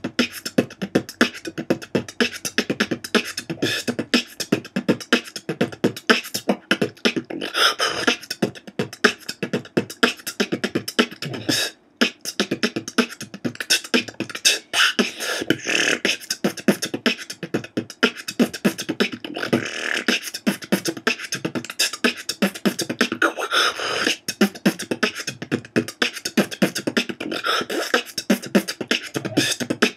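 Beatboxing: one man performing a steady, fast beat with his mouth, built from bass kicks, hi-hats and rim shots. It breaks off for a moment about twelve seconds in, then carries on.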